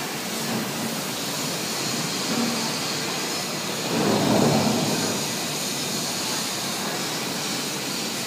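Steady mechanical noise of a locomotive repair shed, with a louder rushing swell about four seconds in.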